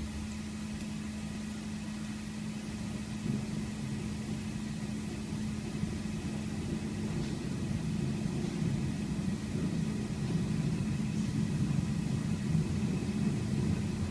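A steady low mechanical hum and rumble, growing slightly louder over the stretch.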